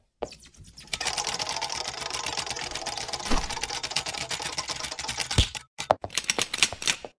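Intro sound effect: a fast, dense run of clicks like typing on a keyboard, broken by a couple of heavier knocks, then a few separate clicks near the end.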